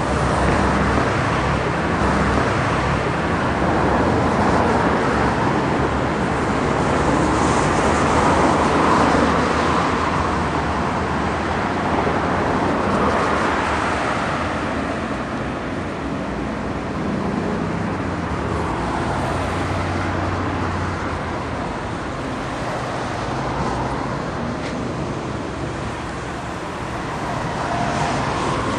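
Road traffic on a busy multi-lane city avenue: a steady rush of passing cars that swells and eases as vehicles go by.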